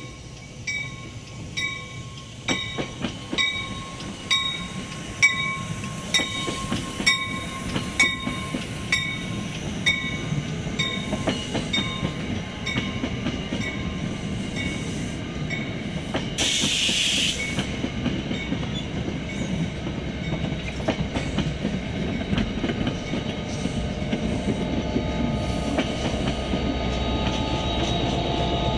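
A passenger train passing close by: a steady run of sharp metallic clicks with a ringing tone over the rails and wheels, and a short loud hiss of air about halfway through. The low rumble of the locomotive builds as it draws near at the end.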